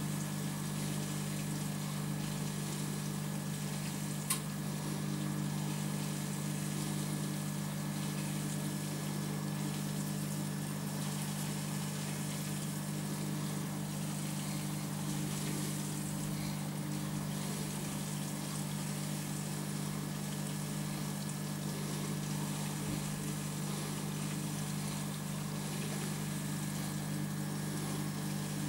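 Aquarium pump running: a steady low mains-type hum with a faint watery hiss over it, and a single sharp click about four seconds in.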